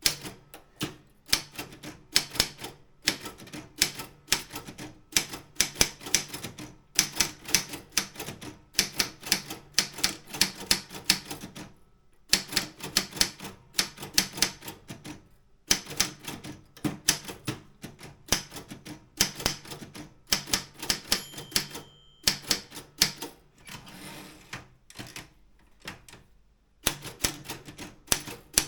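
Optima M16 manual typewriter being typed on: rapid runs of sharp key and typebar strikes against the platen, broken by short pauses, with a brief ringing tone about three-quarters of the way through.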